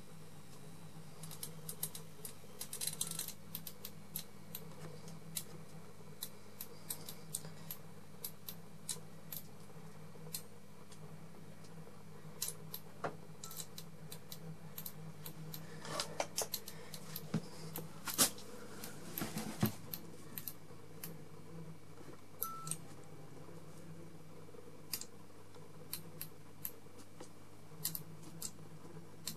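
Steady low electrical hum from a fluorescent lamp's magnetic ballast, with irregular sharp clicks and crackles scattered through it, thickest around the middle.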